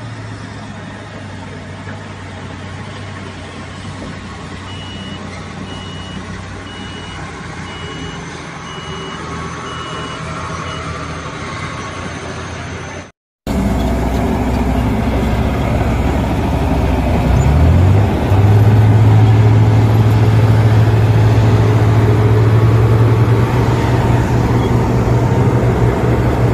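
Komatsu D85SS-2 crawler bulldozer's diesel engine running, with a backup alarm beeping evenly for several seconds. About halfway through the sound cuts briefly and returns louder: the engine revs up, then holds a steady, heavy drone under throttle.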